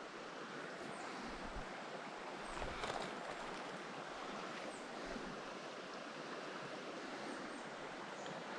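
Steady rush of a creek's flowing water, with a few faint ticks.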